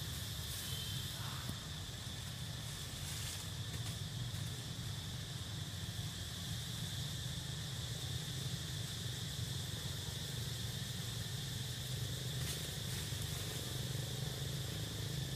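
Steady insect chorus of crickets or cicadas, one constant high buzzing pitch, over a low steady rumble, with a few faint rustles.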